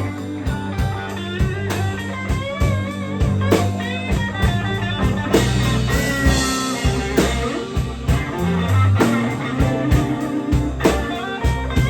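Live blues band playing a slow blues: an electric guitar solo with wavering vibrato and bent notes over bass guitar and drums.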